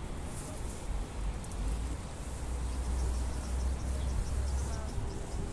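Insects chirping in a fast, regular pulse over a low rumble.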